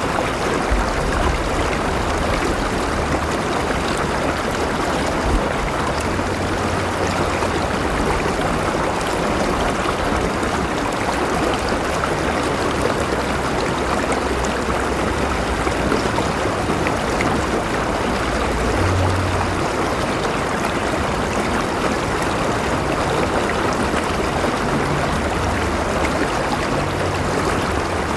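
River water flowing and gurgling over rocks, a steady rushing with some low rumble.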